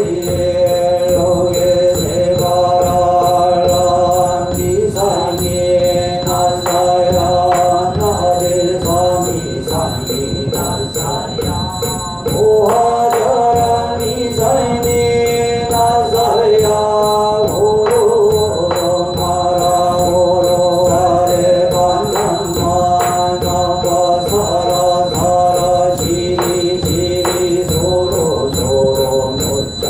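Korean Buddhist yeombul chanting: a monk and congregation chant together in long, held, stepwise notes, with regular sharp strikes keeping time.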